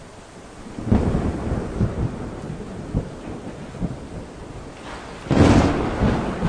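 Thunder: a low rumble with crackling that builds about a second in, then a loud sharp thunderclap about five seconds in.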